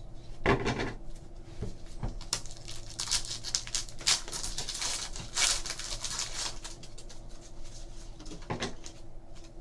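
Trading card packs being torn open and the cards handled and shuffled: irregular rustling, crinkling and sharp clicks, over a faint steady hum.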